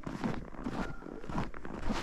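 Footsteps of a person walking on a trail, about two steps a second.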